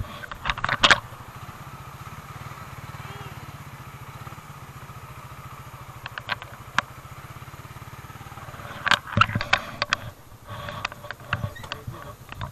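Suzuki Raider R150 Fi's single-cylinder engine idling steadily, with sharp knocks and clatters about a second in and again around nine seconds.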